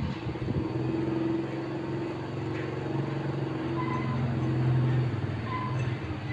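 Steady hum of a motor vehicle's engine running, swelling slightly in loudness a few seconds in and easing off near the end.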